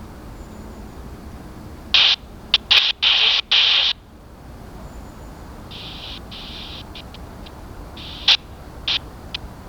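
Air-band radio receiver giving bursts of static with no voice: a cluster of short hiss bursts that switch on and off abruptly, starting about two seconds in, then fainter bursts and a few sharp clicks later, over a steady low background hum.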